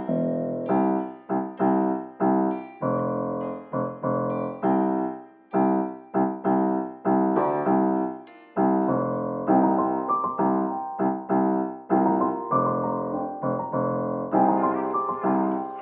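Keyboard playing a repeated pattern of short, fading piano-like chords, the instrumental intro of a rap beat, with brief pauses twice. A high hiss joins near the end.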